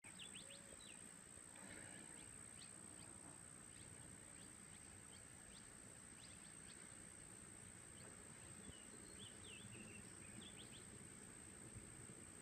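Near silence with faint outdoor ambience: scattered short bird chirps over a steady high-pitched insect trill.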